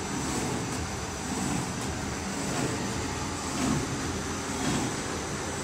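QZ1300 paper sheeting machine running, cutting paper from the roll into sheets: a steady mechanical rumble and hum with faint high steady tones above it.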